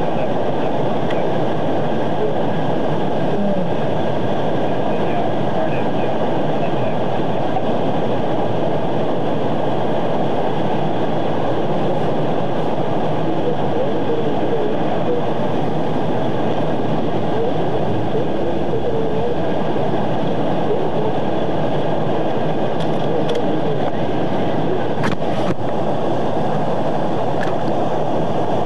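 Steady, unbroken rumbling noise with no pauses, with a few faint clicks about 25 seconds in.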